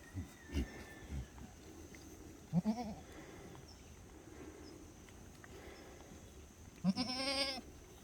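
Black goats bleating: a short bleat about two and a half seconds in, then a longer, quavering bleat near the end. A few low thumps come in the first second or so.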